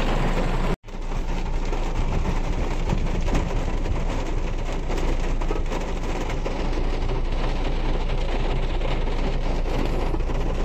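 Steady road noise of a moving vehicle, an even rushing sound that starts after a brief drop-out less than a second in.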